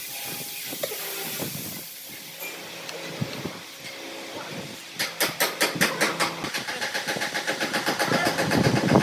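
A wooden rail is twisted by hand onto a screw set in the end of a clamped block, the wood grinding and creaking in a rapid run of sounds, about five to seven a second, that starts about halfway through and grows louder. Before that there is only a low steady hiss.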